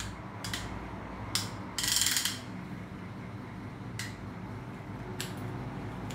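Ratchet mechanism of a hand-operated reversible clamp clicking as its handle is worked: single sharp clicks, with a louder rattling run of clicks about two seconds in.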